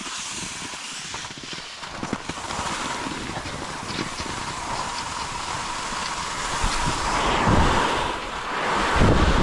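Wind rushing over the microphone, a steady rushing hiss that starts suddenly and swells with low buffeting rumbles about seven and a half and nine seconds in.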